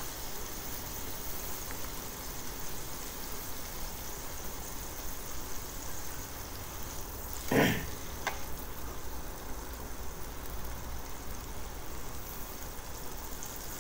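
Chunk of beef sizzling steadily in melted margarine in a frying pan. About halfway through there is a short cough, followed by a light click.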